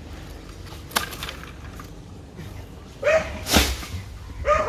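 A dog barking: a few short barks in the last second and a half, after a single sharp knock about a second in.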